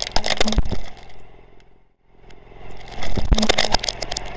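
A hard plastic toy car cracking and crunching under a car tyre, in a quick run of sharp snaps that fades away about two seconds in. The same crunching then comes back in reverse, building up again toward the end.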